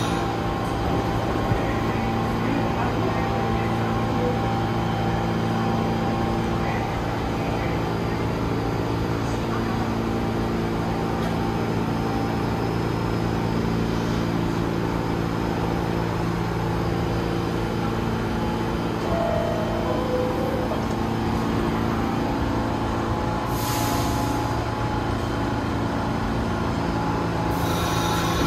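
New York City subway train with a steady, many-toned electrical hum, broken by short hisses of air from the brakes about three-quarters of the way through and again near the end.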